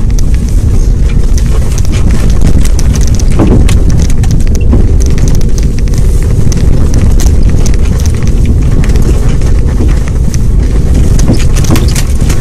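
Loud, steady low rumble of a Jeep Liberty KJ driving over a rough snow-covered track, with frequent sharp knocks and rattles from the wheels and body.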